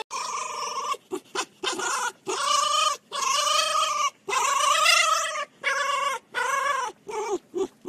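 Red fox making a string of about a dozen high-pitched whining, squealing calls while its belly is rubbed, each call rising and falling in pitch, some long and some very short.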